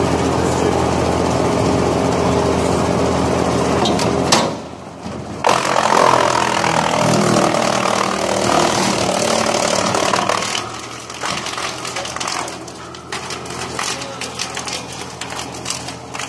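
Wood chipper running steadily. About five seconds in it grows louder and rougher, as when branches are being chipped. Near ten seconds it drops back to a quieter run with rapid, irregular clicking.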